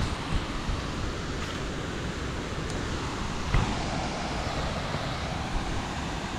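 Steady rushing wind noise on a small action camera's microphone, with a single knock about three and a half seconds in.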